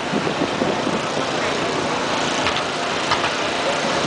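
Fireworks display heard from a distance: a few faint pops and crackles over a steady background noise.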